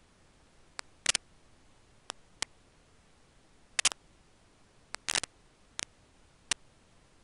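Sharp clicks and snaps of nest sticks as young bald eagles move about on the stick nest: single clicks and quick clusters at irregular intervals, the loudest clusters about a second in, near four seconds and near five seconds, over a faint steady hiss.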